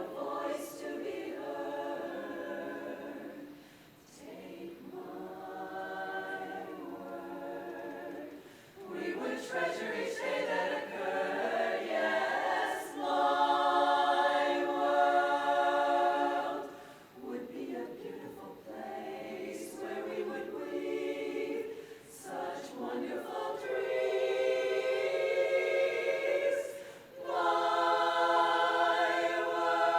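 Women's barbershop chorus singing a cappella in close harmony, in phrases with short breaks between them and long held chords partway through and near the end.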